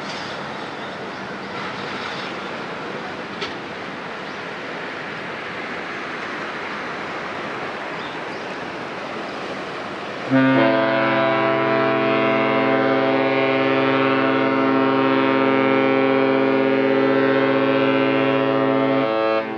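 Steady rushing background noise, then about ten seconds in the cruise ship Westerdam's horn sounds one long, deep, steady blast lasting about nine seconds and stopping just before the end.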